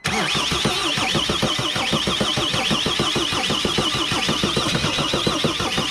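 Mercedes Sprinter diesel engine being cranked by its starter motor without catching: a rapid, even chugging of compression strokes under a wavering starter whine. It is almost starting, with air still being bled from the newly replaced fuel system.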